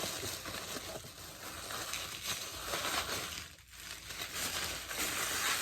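Packaging crinkling and rustling as a mail package is unwrapped by hand, easing off briefly a little past halfway.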